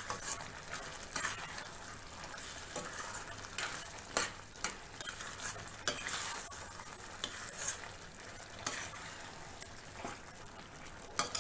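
A utensil stirring and scraping against a kadai, with irregular clicks, as mutton liver pieces fry in thick onion-tomato masala over a steady sizzle.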